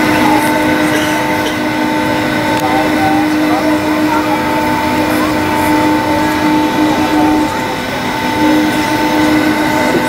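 Cabin noise aboard a Boeing 757-204 while taxiing: a steady drone of its Rolls-Royce RB211 jet engines at taxi power, with several steady whining tones over a rushing noise.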